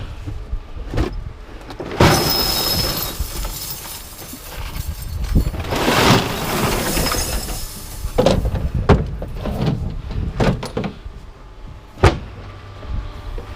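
Scrap metal being unloaded by hand: two long scraping, sliding rushes of metal, then several separate clanks as pieces are dropped.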